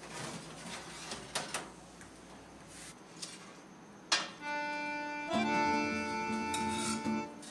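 A few scrapes and clicks as a baking tray is slid out of an oven with a cloth, then background music with held chords starts suddenly about four seconds in and is the loudest sound from then on.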